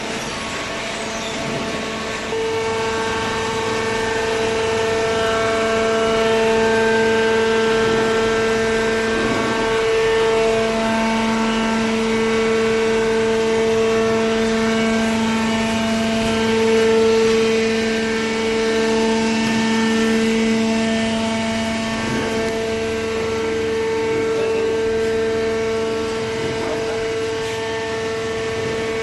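Industrial cardboard shredder and baler machinery running with a steady humming whine that wavers a little in pitch. It gets louder about two seconds in.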